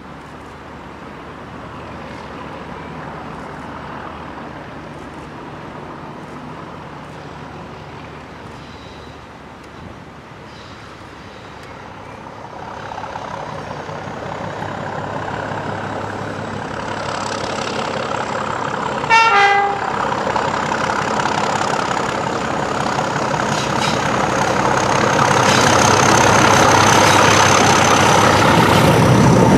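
A convoy of British Rail diesel locomotives approaching, their engines growing steadily louder as they near. A short horn blast sounds about two-thirds of the way in, and a thin high whine sits above the engine noise in the later part.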